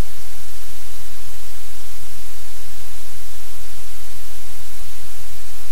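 Loud, steady static hiss with a low hum underneath, unchanging throughout: noise on a livestream camera's audio feed that covers any room sound.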